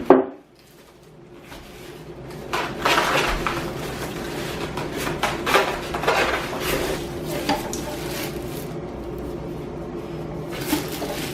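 Blender parts and packaging being handled during unboxing: plastic pieces knocking and packaging rustling in irregular bursts, over a steady low background hum.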